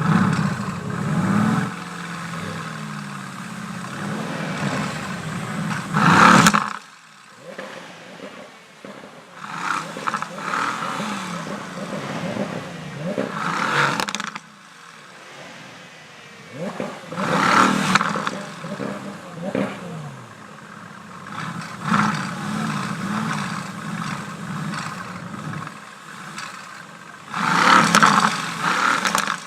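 High-performance exotic car engines revving hard and accelerating away, one after another, in a run of loud rising and falling revs, some of which cut off suddenly.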